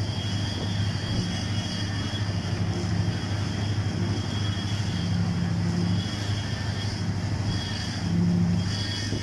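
An engine running steadily: a constant low hum with fainter steady higher tones over a noisy background.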